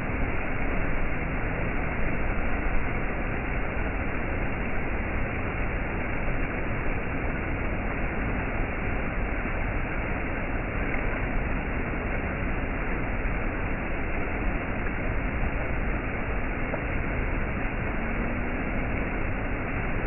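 Stream water cascading over low rock ledges: a steady, even rush of falling and splashing water.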